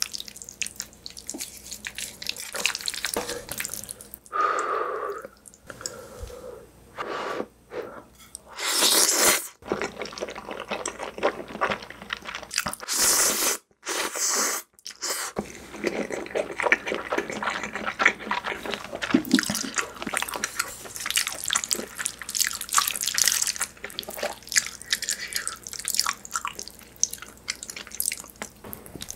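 Close-miked eating of creamy spaghetti: long wet slurps of noodles about a third of the way in and again near the middle, then steady fast wet chewing and mouth smacks.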